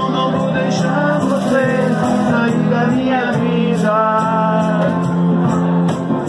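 Live music: a man singing into a microphone to his own acoustic guitar, with a steady beat ticking along underneath.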